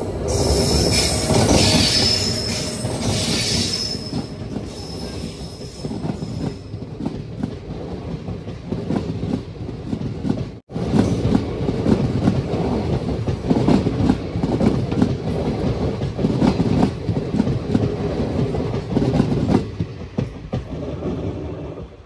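Moving passenger train heard from an open coach door: the rumble of wheels on rails, with a high wheel squeal over the first few seconds on the curve. The sound cuts out for an instant about halfway through, then a steady clatter of wheels over rail joints follows as coaches pass on the next track.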